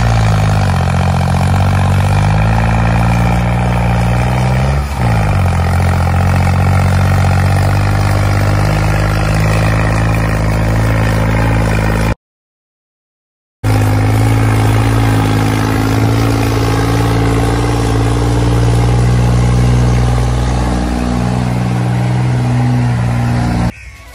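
Diesel tractor engine running, its pitch rising and falling with the revs just after the start and again about five seconds in, then holding steady. It drops out completely for about a second and a half midway and stops just before the end.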